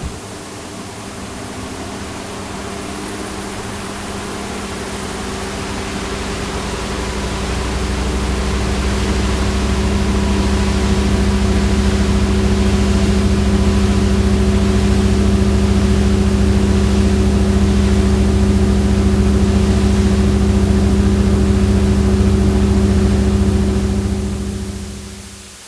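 Household electric appliance motor running with a steady hum over a low rumble. It builds up gradually over the first several seconds, holds steady, then winds down and stops near the end.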